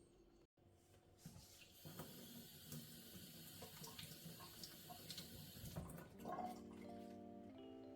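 Kitchen tap running water into a sink for a few seconds, then stopping. Soft background music with held chords comes in about six seconds in.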